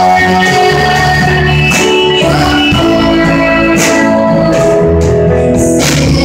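Live rock band playing a worship song: electric guitar, bass, keyboard and a drum kit with cymbal crashes, and voices singing over them.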